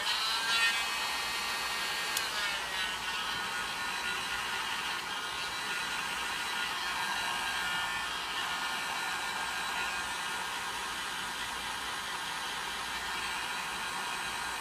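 Heat gun blowing steadily with a fan whine, its pitch settling slightly lower over the first couple of seconds, used to warm the parts of a phone's screen assembly before they are removed.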